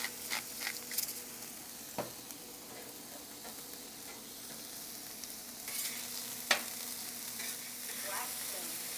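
Chunks of mahi sizzling on a hot Blackstone flat-top griddle, a steady hiss. A metal spatula now and then clicks and scrapes on the griddle plate, with one sharp tap about six and a half seconds in.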